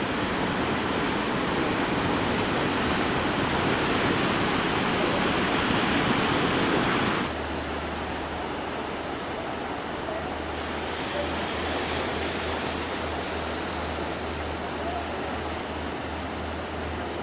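Surf and breaking waves rushing, with wind on the microphone. About seven seconds in the sound changes abruptly to a quieter wash of water with a steady low hum underneath.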